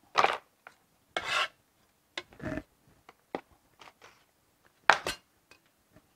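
Chinese cleaver blade scraped across a plastic cutting board in a handful of short strokes, clearing away chopped onion. The loudest stroke, sharper than the others, comes about five seconds in.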